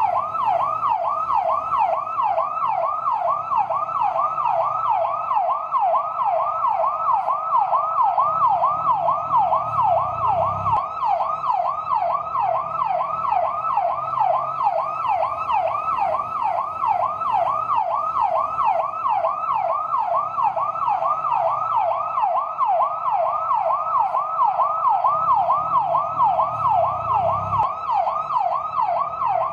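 Fire truck siren on its yelp setting: a rapid, steady up-and-down wail repeating about three times a second.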